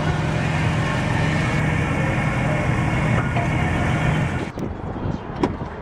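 Steady drone of a running vehicle engine, which cuts off abruptly about four and a half seconds in; a few light clicks follow.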